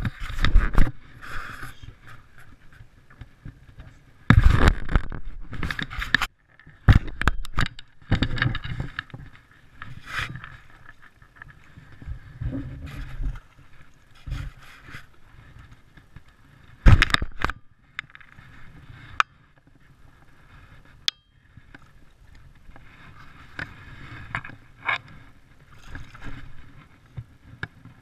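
Close handling noise on a body-worn action camera: irregular scraping, rubbing and bumping against the microphone, with a few loud bumps about four seconds in and again near the middle, between quieter stretches.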